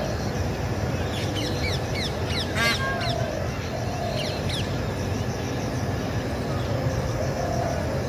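Rose-ringed (green ringneck) parakeet giving one short, harsh screech about two and a half seconds in, among runs of quick, falling bird chirps, over steady low background noise.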